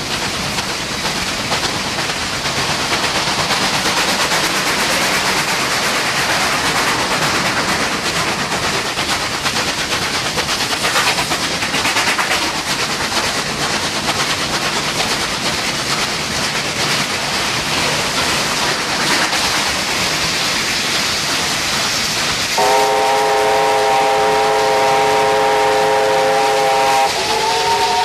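NSW 38 class steam locomotive running, a steady noisy rush of exhaust and wheels. About three-quarters of the way through, its whistle sounds a long chord of several notes, changing pitch slightly near the end.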